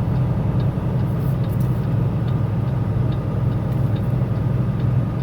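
Tractor-trailer's diesel engine running steadily under way, heard from inside the cab, a low even drone with road noise.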